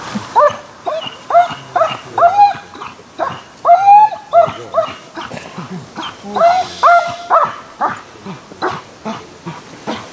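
German Shepherd dog giving short, high-pitched yelping barks, about two a second in runs, keyed up while held sitting at heel before protection work. The calls thin out near the end.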